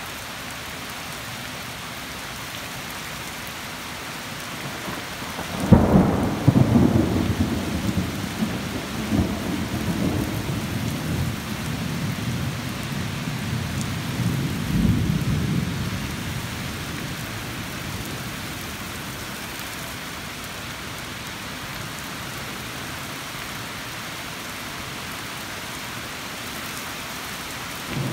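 Steady rain falling throughout. About six seconds in, a thunderclap breaks with a sharp crack, then rumbles for about ten seconds, swelling once more before it dies away.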